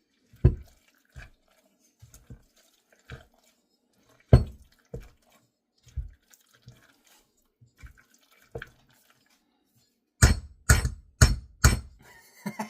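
Spoon stirring a thick, wet pickle dip in a bowl, making scattered squelching smacks and clicks. About ten seconds in comes a quick run of four louder knocks.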